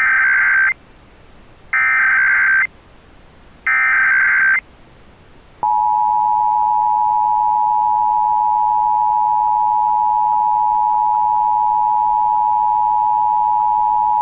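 Emergency Alert System tones: three short bursts of the SAME digital header about a second apart, then the two-tone EAS attention signal held steady for about eight and a half seconds and cutting off sharply at the end. The sequence opens a Required Monthly Test alert.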